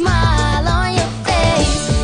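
Background pop song: a sung melody with wavering, held notes over a steady instrumental accompaniment.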